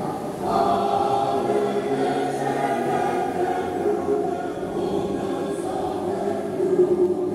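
Choir singing slow, held chords, the voices moving to a new chord every second or two.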